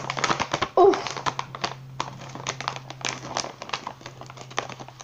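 Crinkly plastic toy bag rustling and crackling in irregular bursts as it is handled and pulled at, with a short exclaimed 'oof' about a second in.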